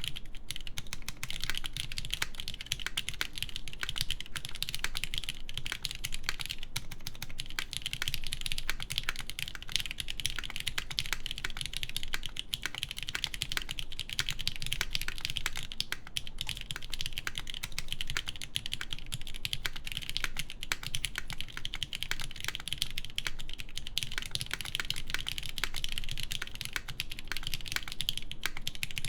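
Continuous fast typing on a custom mechanical keyboard with lubed Cherry MX Black linear switches, an aluminum full plate, and Cherry keycaps. Dense, steady keystrokes without pause.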